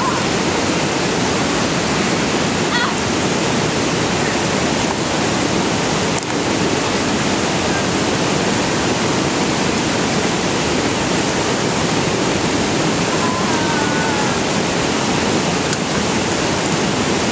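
Spring-fed stream water rushing steadily over rocks, a constant even noise.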